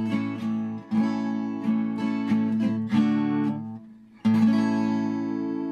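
Outro music: an acoustic guitar strumming chords in a steady rhythm, stopping briefly near four seconds in, then striking a final chord that rings on.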